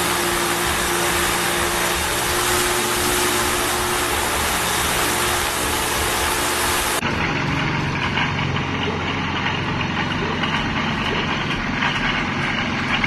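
Rotax 912 iS four-cylinder flat-four engine of a Viper SD4 light aircraft running steadily on the ground at a constant pitch, propeller turning. About seven seconds in, the sound cuts abruptly to a duller recording of the same engine running.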